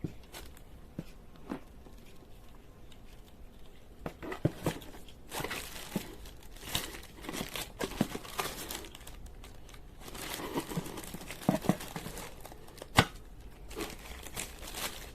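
Plastic packaging crinkling and tearing, with irregular clicks and knocks of a small appliance and its parts being handled. There is one louder knock near the end.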